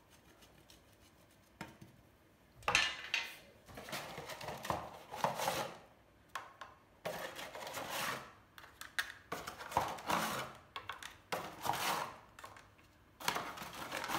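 Dry no-boil lasagna sheets being handled and laid into a baking dish: irregular rustling and light knocks, starting about three seconds in.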